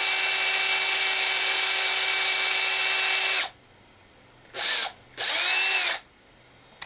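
Cordless drill drilling out the filament hole in a 3D-printed PLA part: a steady motor whine that stops about three and a half seconds in, then two short bursts that spin up and wind down.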